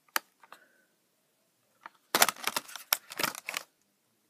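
Stiff clear plastic blister packaging crackling and clicking as it is handled: two single clicks at the start, then a dense run of sharp crackles about two seconds in, lasting about a second and a half.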